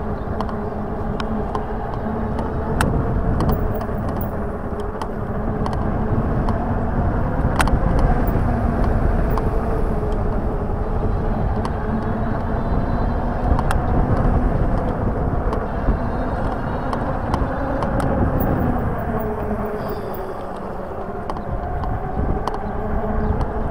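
Lankeleisi X3000 1000 W e-bike riding along, its motor giving a steady hum over tyre and wind noise, with scattered clicks and rattles. The hum's pitch dips and then climbs again near the end as the speed changes.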